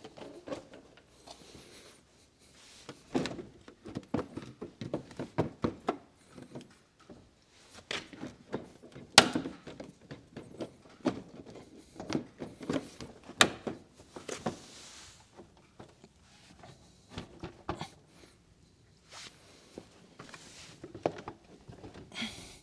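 Irregular knocks, taps and thuds of a plastic BMW 5 Series M Sport front bumper cover being handled and offered up to the front of the car. One sharp knock about nine seconds in is the loudest.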